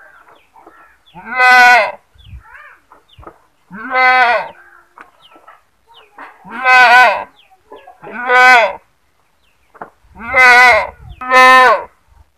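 A goat bleating loudly: six quavering calls of about half a second each, spaced one to three seconds apart, with the last two close together.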